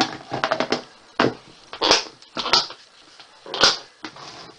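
Plastic food-storage box lid being fitted and pressed shut, giving a series of sharp plastic clicks and snaps: a quick cluster at first, then single snaps about a second apart as the lid seats and its clip tabs close.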